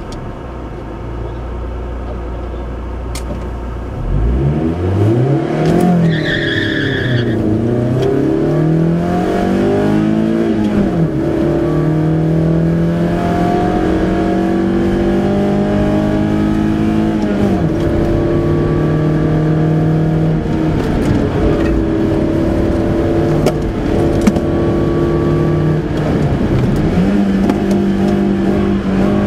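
Volkswagen Golf III 16V's four-cylinder engine heard from inside the car on a competition run: a low, steady idle for about four seconds, then the launch, revving hard and dropping in pitch at each quick upshift. After that it mostly holds a high, steady pitch, with a few brief dips and re-accelerations.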